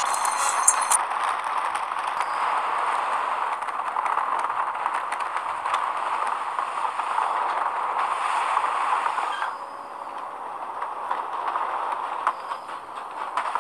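Steady rolling noise of a train running along rails, which eases off briefly about ten seconds in and then picks up again.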